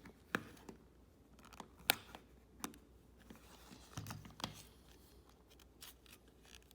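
Irregular sharp clicks and light scraping of the plastic casing of a Logitech Harmony 650 remote being handled and slid open.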